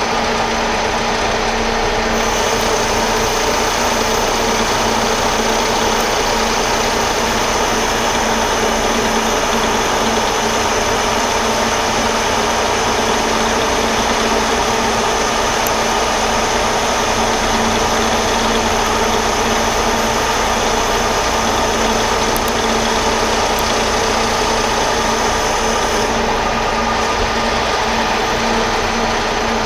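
Metal lathe running steadily under a heavy 100-thousandths-deep roughing cut. A brighter, hissing cutting noise joins the machine's hum about two seconds in and drops away a few seconds before the end, as the tool feeds along and throws off hot chips.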